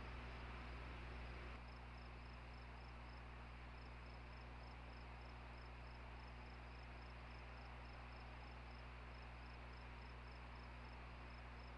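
Low background of steady electrical hum and hiss from a nest camera's microphone, with a faint, high, rapidly repeating chirp running through it. The hiss steps down slightly about a second and a half in.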